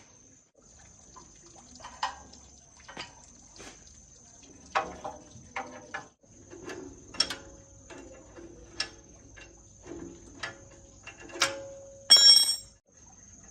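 Hand tools and metal engine parts clinking and knocking at irregular intervals during an engine repair, with a louder ringing metallic clang about twelve seconds in.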